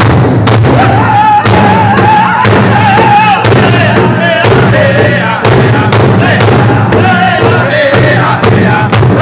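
Plains-style powwow drum group: several men striking one large drum together in a fast, even beat while singing loudly in high voices.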